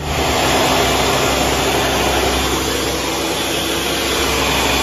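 A small motor-driven appliance running steadily, a loud even rushing noise with a faint low steady tone under it.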